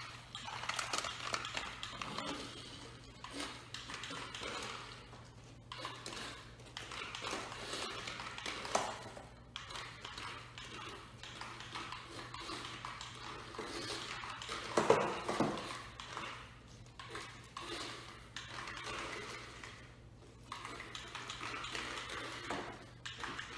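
A small papier-mâché-bodied RC toy car driving over a hard floor, rattling and clattering as it goes, with a louder knock about fifteen seconds in.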